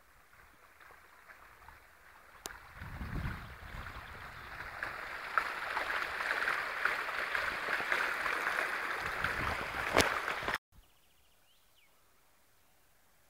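Water splashing and gurgling from a garden boulder fountain, the jet spilling down over the rock. It swells louder over the first few seconds, with a brief low rumble early in the rise, and cuts off suddenly about ten and a half seconds in.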